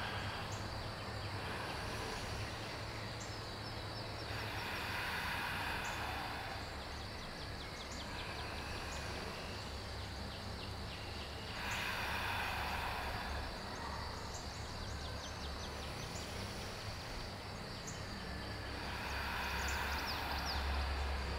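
Three slow, deep breaths in and out through the nose, the exhales heard as soft rushes of air about seven seconds apart, over a faint steady background hiss.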